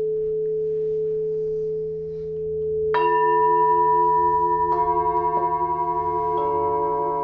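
Singing bowls ringing: a steady held tone, joined by three strikes about a second and a half apart, each adding a new ringing tone that wavers as it sustains.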